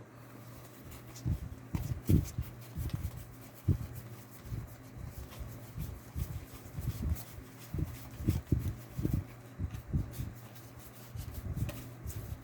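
Trading cards being handled and flipped through on a desk: irregular soft taps and rubs, one or two a second, over a steady low hum.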